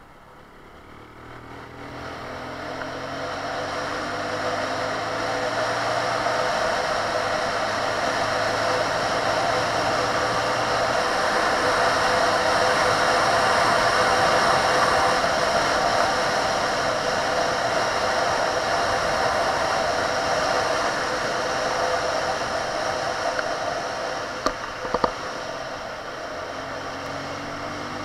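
A Benelli 150S motorcycle engine pulls away out of a curve, its pitch rising through the gears, while wind rushes over the microphone and grows louder as speed builds. Near the end come two sharp clicks, and then the revs climb again.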